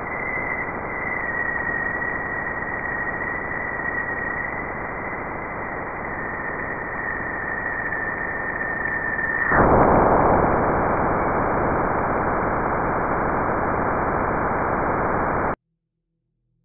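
Sonified Juno Waves electric-field data from Jupiter's bow shock crossing: a hiss carrying a steady high tone, the upstream plasma oscillations, which about nine and a half seconds in gives way suddenly to a louder, rougher hiss as the spacecraft crosses the bow shock. The sound stops abruptly near the end.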